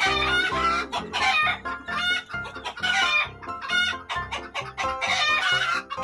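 Chickens clucking and calling, with wavering, pitched calls coming about once a second over a steady music bed.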